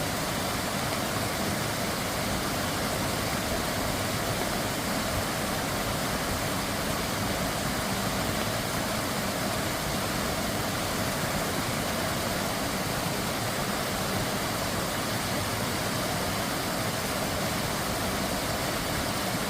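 Mountain valley stream water rushing steadily over rocks, an even, unbroken noise.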